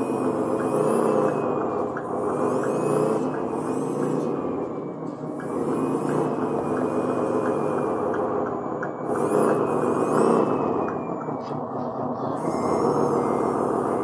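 Radio-controlled model motor grader driving across carpet: its electric drive motor and gears whirring steadily, with swelling and easing sweeps of higher whine every second or two.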